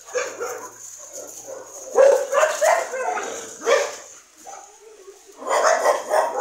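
Dogs barking in short clusters of rapid barks: a run of barks about two seconds in, a single loud bark just before four seconds, and another run near the end.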